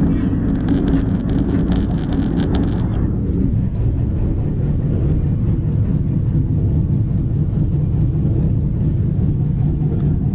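Diesel locomotive running with a loud, steady low rumble. For the first three seconds a rapid rattling rides over it, then the sound changes abruptly to a deeper, steadier rumble.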